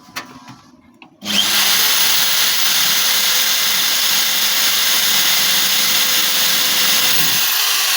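Power drill starting about a second in and then running steadily, spot-drilling a shallow mark rather than drilling all the way through.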